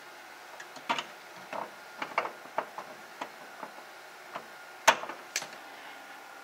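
Irregular sharp clicks and snips as pliers-type cutters trim the tails off plastic zip ties on a cable bundle, with small handling clicks. The sharpest snap comes about five seconds in.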